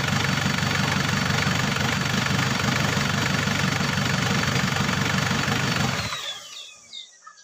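Isuzu Trooper's 4JX1 diesel engine idling steadily with a high whine over it, then shut off about six seconds in, the whine falling away as it winds down.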